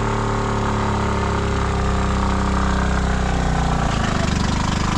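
Small engine of a three-wheeled motocarro (cargo three-wheeler) running steadily as the vehicle moves slowly past on gravel. Its pulsing gets more distinct from about three and a half seconds in, as it comes close.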